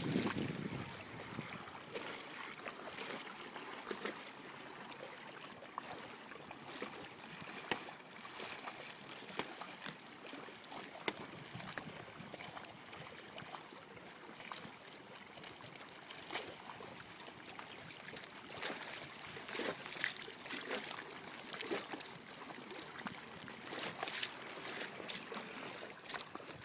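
Small choppy waves lapping and splashing at the water's edge, a steady wash broken by many irregular light splashes.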